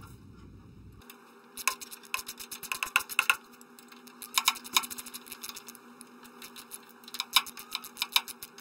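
Hand wrench tightening the nuts of a steel bracket: runs of quick metallic clicks with short pauses between.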